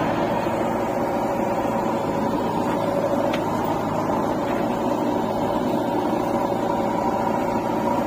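Diesel engines of a JCB 3DX backhoe loader and an Eicher tractor running steadily side by side, a constant engine drone with no change in pitch.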